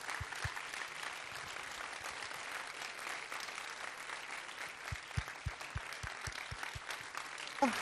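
Audience applauding steadily, with runs of dull low thumps at about four a second near the start and again from about five seconds in.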